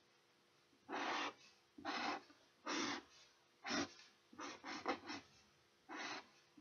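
Pen drawing on paper: about eight strokes, each under half a second, with a quick run of short ones around the middle.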